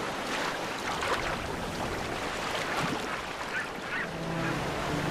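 Surf and splashing water, with harsh honking calls from a crowd of giant petrels squabbling on the sea surface. Low music notes come in about four seconds in.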